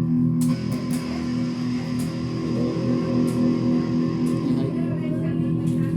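Electric guitar played through a clone Revv G3 distortion pedal: sustained chords ring out, with a new chord struck about half a second in, while the pedal's bass control is being demonstrated.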